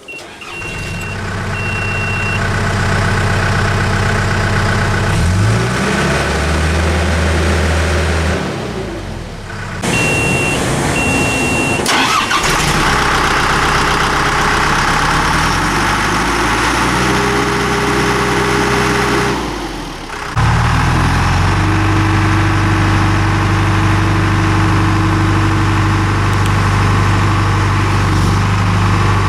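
John Deere 310G backhoe loader's four-cylinder 4045 diesel engine starting and running. A warning buzzer beeps briefly at start-up, and the engine speed steps up and down a few times.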